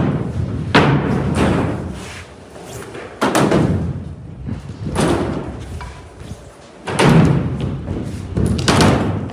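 Carver surfskate's wheels rolling on a hollow plywood ramp. Five loud thuds come a second or two apart, each booming off and fading as the board rolls on.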